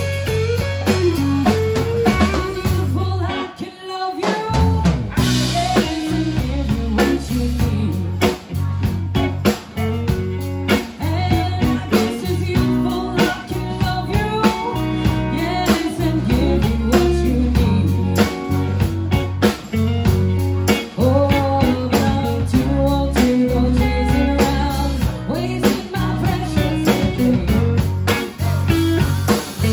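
Live blues-rock band playing an instrumental passage: electric guitar over bass and drum kit. The band stops briefly about four seconds in, then comes back in.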